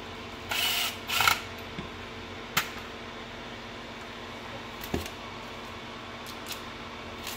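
Plastic instrument cluster from a 1999 Nissan Frontier being handled and turned over on a workbench: two short scraping rustles about half a second and a second in, then a sharp click and a knock as it is set down, with a few light ticks after, over a steady faint hum.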